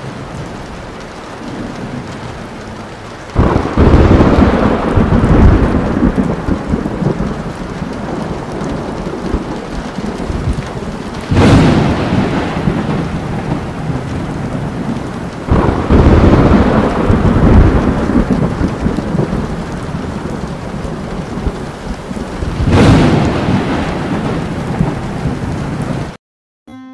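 Steady rain with four claps of thunder, each starting suddenly and rumbling on for a few seconds; the sound cuts off abruptly just before the end.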